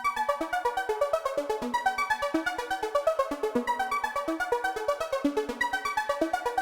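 Upbeat electronic music: a synthesizer keyboard melody of short notes over a fast, even pulse.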